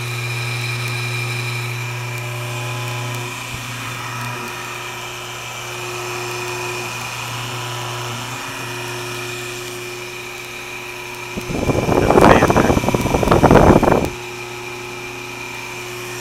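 Century 1 hp farm-duty electric motor running unloaded on a bench, with a steady hum. About 11 seconds in, a loud rushing noise sweeps in for about two and a half seconds, then the hum carries on alone.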